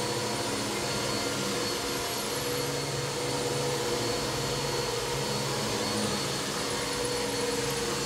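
Upright bagless vacuum cleaner running steadily, its motor holding one even pitch throughout.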